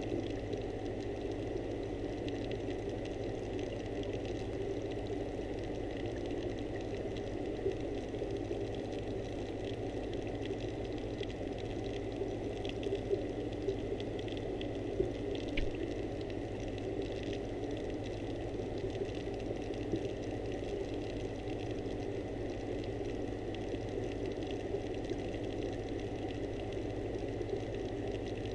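Steady underwater hum and muffled hiss, with a few faint clicks now and then, picked up by a camera submerged in a koi pond.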